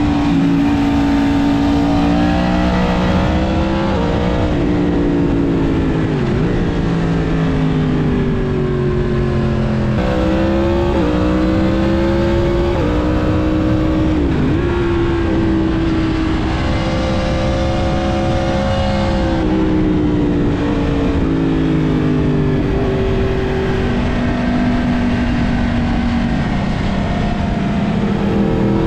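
Yamaha MT-10's crossplane inline-four engine through a full aftermarket Mivv exhaust while riding: the pitch climbs under throttle and drops at each gear change several times, with steadier cruising stretches between.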